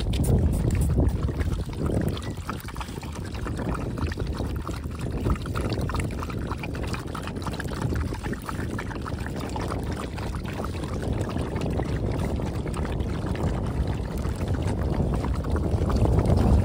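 Several dogs lapping milk from a plastic tub while milk is poured into it from a plastic pouch, with many short wet ticks from the lapping. Wind rumbles on the microphone throughout and is the loudest sound.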